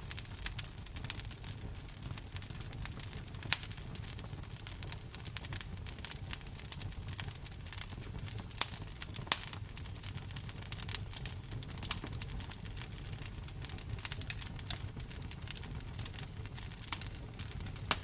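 Wood fire crackling: frequent small snaps and pops over a low steady rumble of the burning logs, with a few louder pops scattered through.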